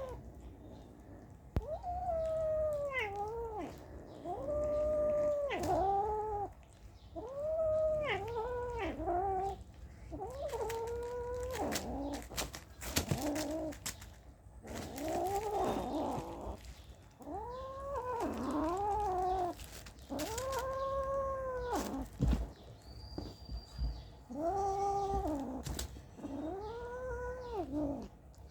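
Kitten meowing over and over in long, drawn-out calls, about one every two seconds, with a few sharp clicks in between.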